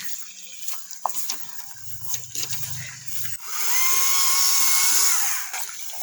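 Stihl MSA 140 C battery chainsaw's electric motor and chain spinning up about three and a half seconds in, running at a steady high whine for under two seconds, then winding down. Scattered light knocks before it.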